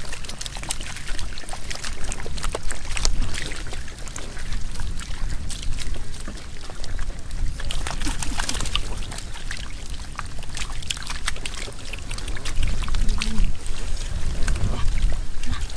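Wet splashing, trickling and slapping of shallow muddy water as fish are scooped out of the mud by hand and thrash on the wet ground, with many short sharp slaps and clicks throughout.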